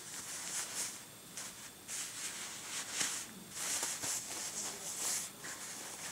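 Rustling and crinkling of a plastic bag and doll clothes being handled, in short irregular bursts.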